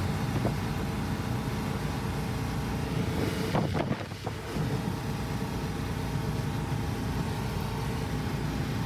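Goods truck running at highway speed, its engine and road noise heard from inside the cab as a steady, dense low-pitched noise. A brief higher-pitched sound cuts in about three and a half seconds in.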